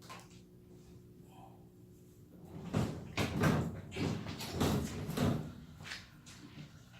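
Steady low hum of the laser's running water-cooling and air pumps, with a few seconds of loud clattering and rustling in the middle as objects are handled and knocked about.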